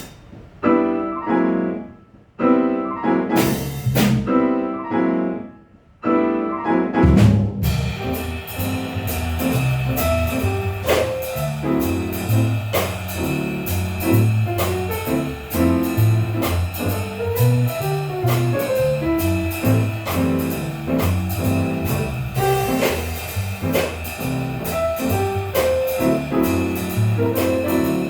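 Jazz trio of piano, bass and drums playing a swing tune. It opens with separate piano chords punctuated by cymbal hits and short pauses, then about seven seconds in the bass and drums come in with a steady swinging groove under the piano.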